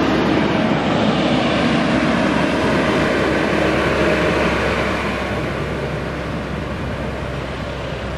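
A motor vehicle running close by: steady engine and road noise with a faint hum, easing off a little after about five seconds.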